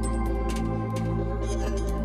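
Background music: soft ambient electronic track with sustained keyboard chords, a held bass and a light steady beat.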